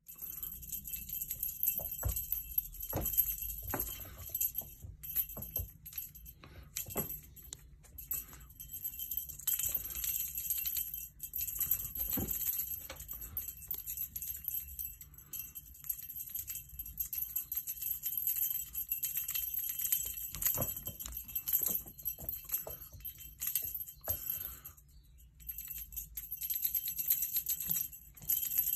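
A small bell on a cat wand toy jingling as it is shaken and swung, with short pauses, and scattered light knocks through it.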